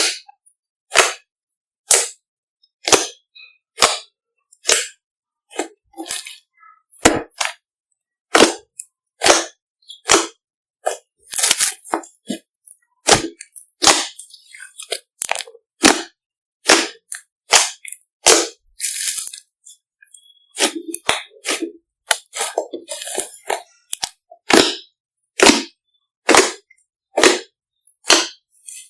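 Slime being worked by hand, making sharp air-bubble pops and clicks about once or twice a second, with a few longer crackly stretches.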